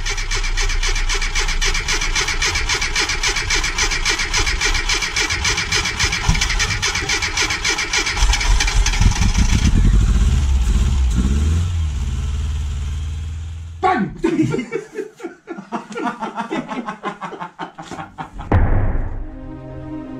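1997 Rover Mini Cooper MPI's four-cylinder A-series engine running, its firing a fast, even pulse. It fades out a little past halfway. A few seconds of irregular knocks follow, and music begins near the end.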